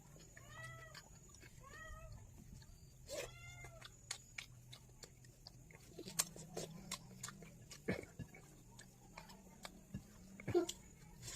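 A cat meowing three times in the first few seconds, each a short cry that rises and falls in pitch. Later come scattered clicks and smacks of someone eating.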